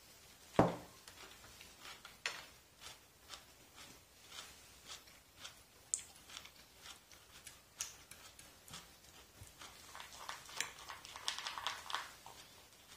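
Fork and knife clicking and scraping on a ceramic plate while eating salad: a series of light taps, with one louder knock about half a second in and a quicker run of clicks near the end.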